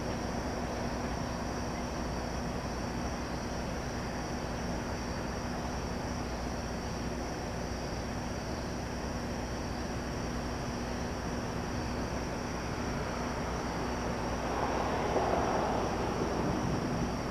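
Steady distant rumble and hum of CSX SD40-2 diesel locomotives, swelling briefly about fifteen seconds in.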